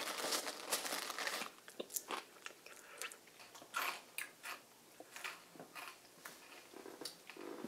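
A crinkly clear plastic snack bag rustling as a hand rummages in it, then scattered crunching crackles.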